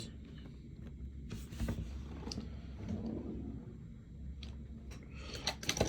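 Faint handling of a cardboard trading-card blaster box and its packs: scattered light taps and rustles over a low steady hum, with a quick cluster of clicks near the end.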